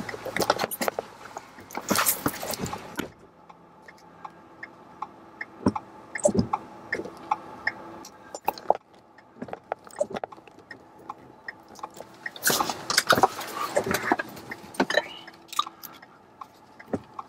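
Sounds inside a stopped car in a thunderstorm: two stretches of rushing noise, one at the start and one about twelve seconds in, with irregular light taps and clicks between them over a faint steady hum.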